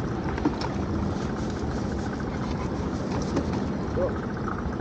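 A boat engine idling steadily, a low even rumble, with a couple of faint clicks about half a second in.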